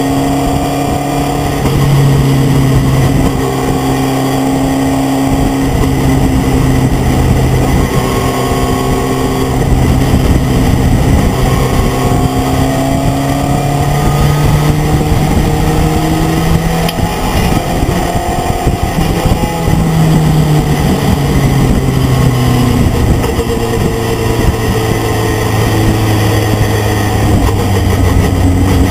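Racing pickup truck's engine heard onboard at racing speed, running hard under full load. Its pitch repeatedly climbs and then drops back, with gear changes and lifts for corners, over steady wind and road noise.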